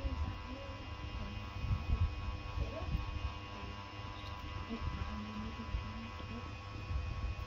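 Steady electrical hum with a low rumble underneath, and a few faint short squeaks.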